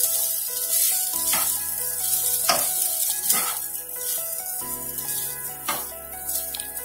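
Raw rice sizzling as it is fried in hot oil in a pan, stirred in about five scraping strokes. This is the light frying of the rice that keeps the grains separate in the pulao. Soft background music with held notes plays along.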